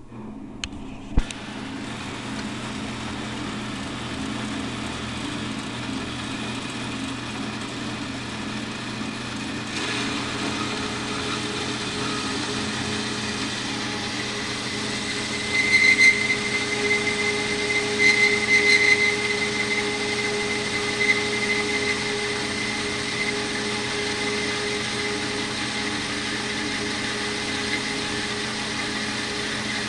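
Newly built bandsaw switched on with a click about a second in, then running steadily with a motor hum. About ten seconds in the sound thickens as the blade starts into a piece of bar stock, with uneven high squeals of the cut about halfway through.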